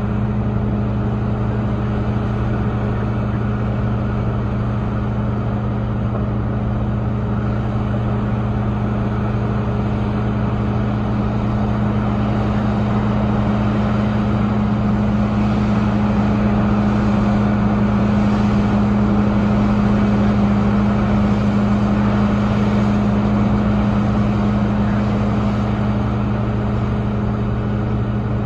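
Caterpillar 6015 hydraulic mining excavator's large diesel engine running steadily, a deep even drone that swells a little past the middle of the stretch as the machine works.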